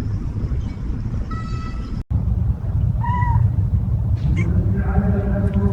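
A cat meowing: short meows about a second and a half in and again about three seconds in, over a steady low rumble.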